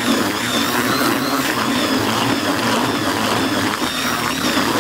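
Cordless drill spinning a whisk mixing paddle through heavily watered groundbait in a plastic bucket, running steadily with an even motor whine.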